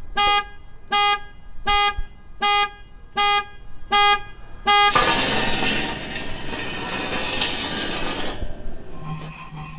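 Seven short car-horn-like honks in an even rhythm, followed by about three seconds of loud hissing noise that cuts off suddenly; a low steady hum starts near the end.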